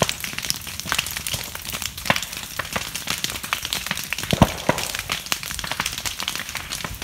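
Bamboo grove and its undergrowth burning: a dense, irregular crackle of small pops over a steady hiss, with one sharper pop about four and a half seconds in.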